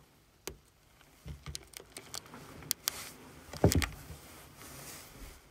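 Handling noise: a scatter of light taps and clicks, with one heavier knock about three and a half seconds in.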